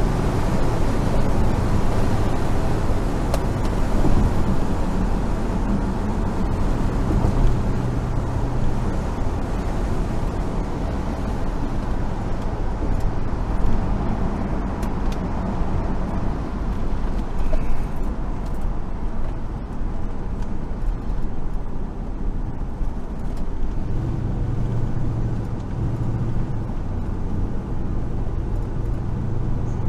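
1970 Chevrolet Monte Carlo's V8 engine running while the car is driven, heard from inside the cabin over steady road and wind noise. The rushing noise lessens about two-thirds of the way through, and the engine's low drone grows stronger near the end.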